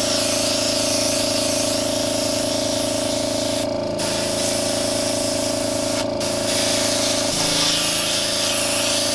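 Airbrush spraying a light coat of paint with a steady hiss, cut off briefly twice, around four and six seconds in, as the trigger is let go. Under it the air compressor feeding the airbrush hums steadily, its pitch shifting slightly about seven seconds in.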